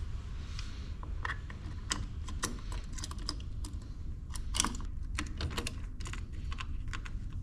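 Irregular light clicks and taps of the transducer mounting bracket and its fittings being handled and fitted by hand, over a steady low hum.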